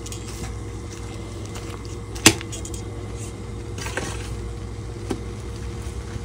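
Metal tongs clinking against a saucepan of stinging nettles boiling in water: one sharp clink about two seconds in, then two lighter taps later, over a steady low hum.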